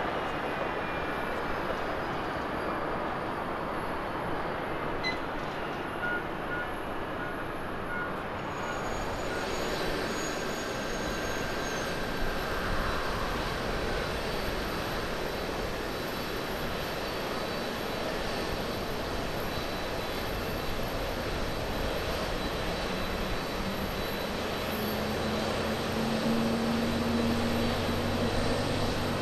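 Jet noise of a Boeing 747 climbing away after takeoff, fading with a faint falling whine. Then the two CFM56 turbofans of an Airbus A321-213 run at takeoff power during its takeoff roll: a steady jet noise with a low hum that rises in pitch near the end.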